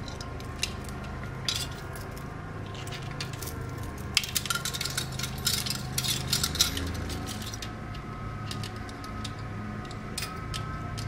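Handling noise from a Cooler Master Hyper T4 CPU cooler being unpacked: scattered light clicks and clinks, busiest between about four and seven seconds in.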